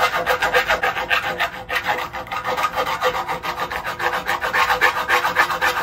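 Hand file rasping back and forth in a freshly drilled hole in a car's metal crash bar, deburring it with quick, even strokes about five a second.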